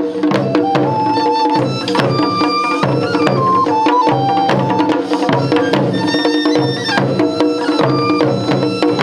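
Japanese taiko drum ensemble playing, with rapid drum strikes over held tones and a high melody that steps in pitch.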